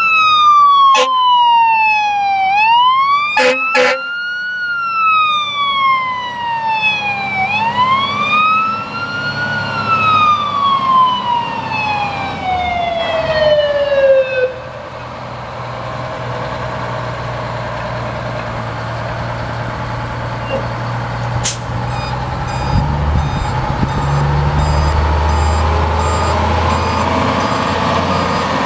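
The siren of a 1993 E-One Hurricane ladder fire truck sounding a rising-and-falling wail, about one cycle every five seconds, with a few sharp clicks in the first four seconds. About halfway through, the wail drops away and stops, leaving the truck's Detroit Diesel 6-71TA six-cylinder diesel engine running, louder near the end.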